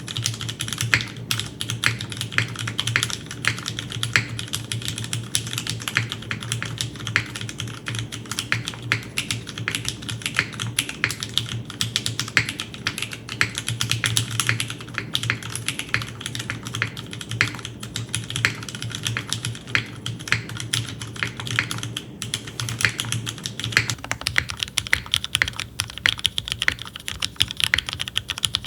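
Continuous typing on a Merisi Works 500c custom mechanical keyboard with lubed vintage Cherry MX Black linear switches, an aluminium plate and GMK keycaps: a steady run of clacking keystrokes.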